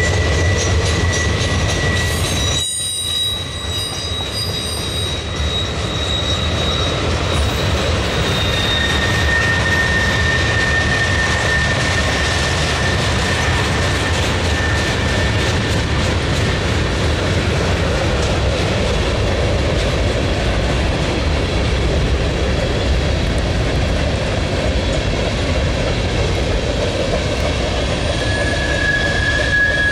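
Freight cars of a mixed manifest train rolling past, the steady rumble of their wheels on the rails running throughout. Thin high-pitched wheel squeals come and go over the rumble.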